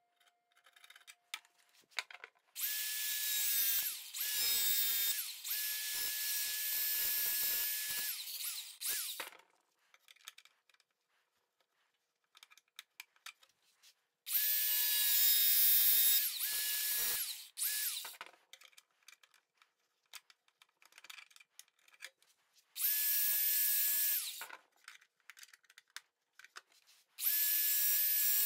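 Small cordless angle grinder run against a painted metal panel in four bursts, the longest about six seconds, each with a steady motor whine. Faint scraping and tapping between the runs.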